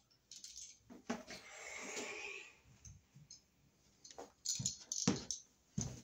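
Scattered light clicks and knocks of hand tools and wire being handled at a light switch box, with a longer scraping rustle about a second in.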